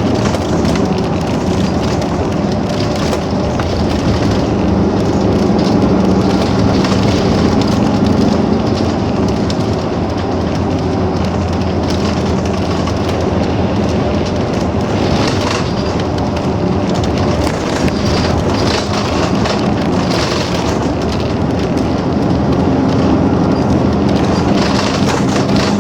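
BRT bus driving steadily on the highway, heard from inside: a constant engine hum over loud road and tyre noise.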